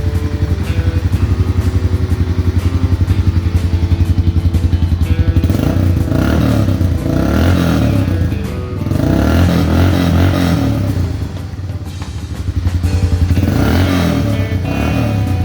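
Honda Fourtrax ATV's single-cylinder engine idling with a quick, even pulse, then revved three times. It is running again after a no-start that was traced to a dead CDI box. Background music plays underneath.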